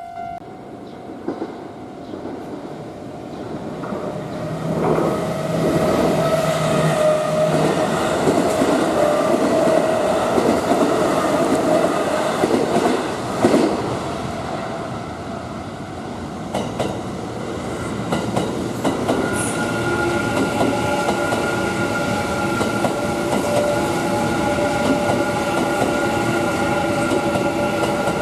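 Electric train passing close by on the Kintetsu Nara Line, its wheels clattering rhythmically over the rail joints; the noise builds from about four seconds in and is loudest through the middle. A steady whine holds over the last part.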